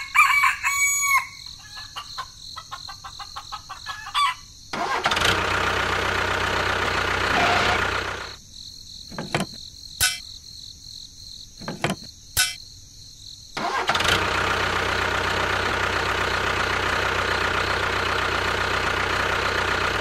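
A rooster crows once at the start. From about five seconds in an engine runs steadily; it stops for about five seconds in the middle, when a few sharp clicks are heard, and then starts running again.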